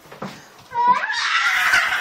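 A loud, shrill cry that starts about two-thirds of a second in, its pitch rising at first and then held.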